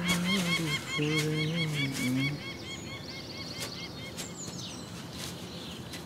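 A cow mooing in two long, steady calls over the first two seconds, with a small bird chirping repeatedly above it. After that the calls stop, leaving quieter rural ambience with bird chirps and a brief high trill.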